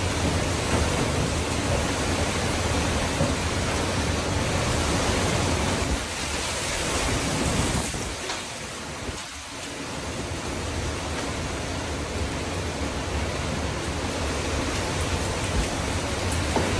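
Tornado wind and driving rain: a steady rushing noise that eases a little about nine seconds in, then builds again.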